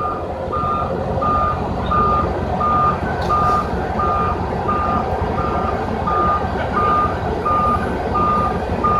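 Dump truck's backup alarm beeping steadily, nearly two beeps a second, over the low rumble of diesel road-milling machinery.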